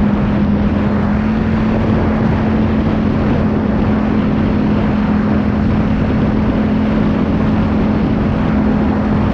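A vehicle engine running at a steady speed, a constant hum under loud rushing noise.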